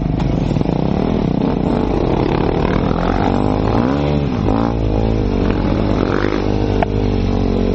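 Enduro motorcycle engine running hard on a dirt trail, its pitch swinging up and down with throttle changes around the middle. A single sharp click comes near the end.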